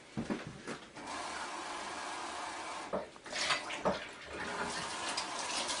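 Kitchen sink faucet running steadily as water is drawn to measure out a cup. A few knocks and clinks of handling come in the first second, and again about three to four seconds in, interrupting the flow.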